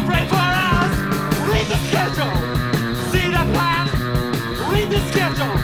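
Post-punk rock music from a guitar, bass and drums band: loud, dense and steady, with regular drum hits and high notes sliding up and down.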